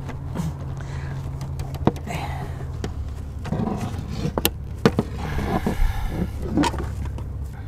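Sharp metallic clicks and scrapes of steel wire rope strands against the metal marlinspike of a folding knife as it is forced into the lay to tuck an eye splice, over a steady low hum.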